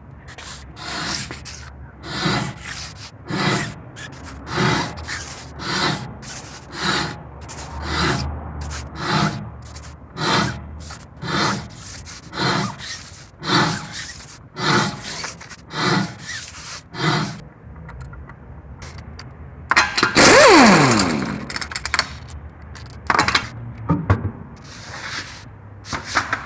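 Worn-out brake pads grinding metal on metal against the brake disc as the wheel turns, one scrape a little more than once a second. About twenty seconds in comes the loudest sound, a harsh grinding squeal that falls in pitch, then a few clicks. The pads are worn completely through, and the grinding is wearing the disc thin.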